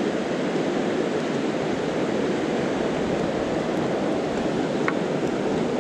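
Steady rushing of a mountain river running over a shallow rocky riffle.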